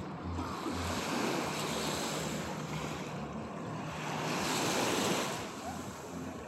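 Small waves washing up the sand at the water's edge, the wash swelling twice and loudest about four to five seconds in, with wind rumbling on the microphone.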